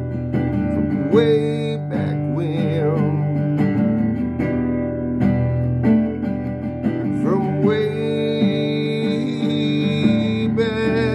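Acoustic guitar strumming through an instrumental passage of a country song, with a held, wavering melody line sounding over the chords.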